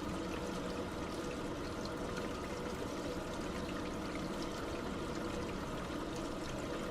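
Liquid pouring in a steady, unbroken stream, with a constant splashing trickle that neither swells nor stops.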